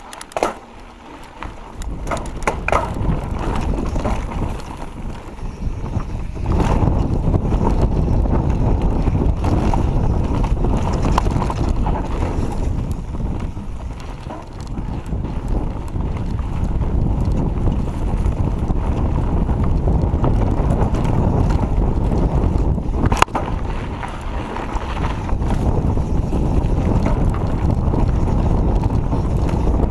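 Wind buffeting the camera's microphone while a Giant Reign enduro mountain bike runs fast down a rough dirt trail, its tyres rumbling and frame rattling over the ground. The noise grows louder over the first several seconds, eases briefly midway, and a sharp knock from a bump comes about two-thirds of the way through.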